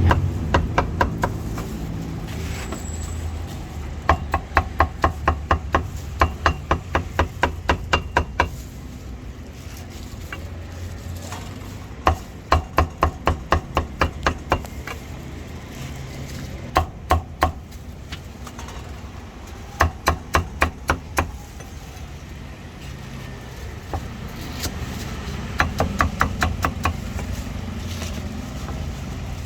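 Cleaver chopping roast meat on a wooden chopping block in quick runs of strikes, about four to five a second, with pauses between the runs, over steady traffic hum.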